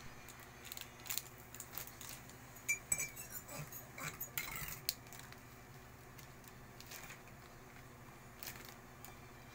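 Metal teaspoon clinking and tapping in a ceramic mug while a plastic instant-coffee sachet crinkles; the clinks are busiest in the first half, with a couple of short rings, then only a few light taps.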